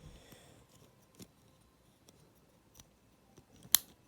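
Small sharp plastic clicks and taps from handling the parts and packaging of a Beyblade spinning top, with one loud click near the end.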